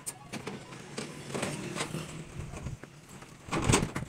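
Scattered knocks and clinks from work on a steel rebar mat, with one louder knock a little before the end.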